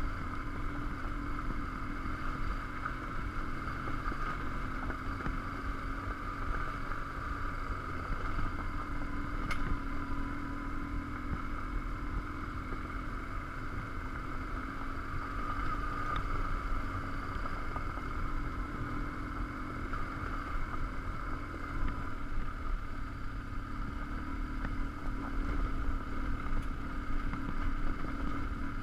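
BMW R1150GS Adventure's flat-twin boxer engine running steadily at a constant pace on a gravel track, mixed with steady wind and tyre noise.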